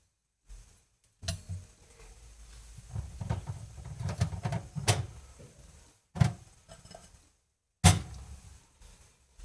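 A few sharp knocks and clatter of kitchen objects being handled, with low rumbling handling noise around the middle; the loudest knock comes near the end.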